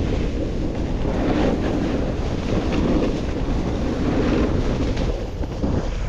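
Wind rushing over the microphone of a snowboarder riding downhill, mixed with the rough scrape of the snowboard sliding over groomed, tracked snow.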